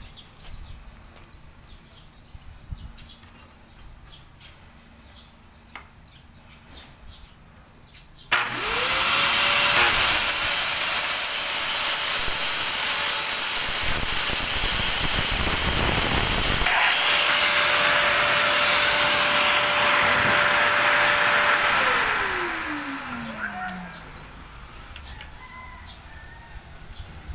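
A few faint clicks, then about eight seconds in a Bosch circular saw starts and cuts plywood along a guide rail, its motor rising to a steady whine over the noise of a Bosch dust extractor pulling the sawdust through its hose. About 22 seconds in the saw is released and its motor winds down with falling pitch while the extractor noise fades out.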